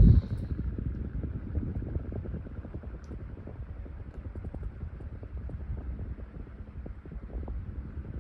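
Four-bladed light-socket mini ceiling fan running at medium speed: a steady low rumble of moving air with a rapid pulsing from the blades. A short thump right at the start.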